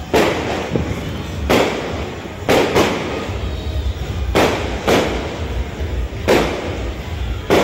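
A run of about eight sharp bangs at uneven intervals, each trailing off over about half a second, over a steady low rumble.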